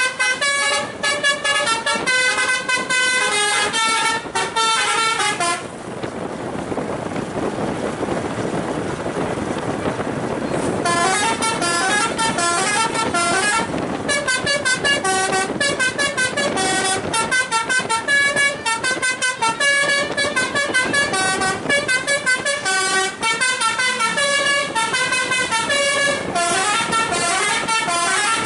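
Basuri V3 telolet horn on a tour bus playing a fast tune of short stepping notes. About six seconds in it stops for roughly five seconds of steady rushing noise, then plays on to the end.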